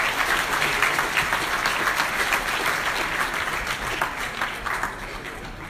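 Audience applauding, many hands clapping at once, the clapping dying down near the end.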